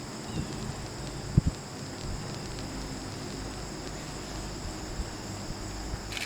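Quiet outdoor ambience with a steady high-pitched hiss, broken by two sharp knocks about a second and a half in and a brief high sound near the end.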